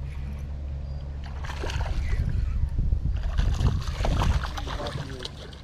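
A hooked bass thrashing and splashing at the water's surface, in a run of irregular splashes that is loudest a little past the middle, over a steady low hum.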